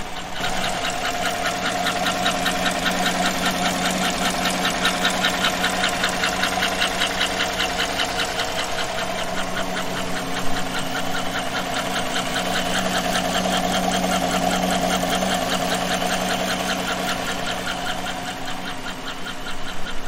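2015 GM 5.3-litre L83 V8 idling low with a slow, even ticking over the engine's steady hum. By its speed, half that of the crankshaft, it is a top-end valvetrain tick, typical of a bad lifter.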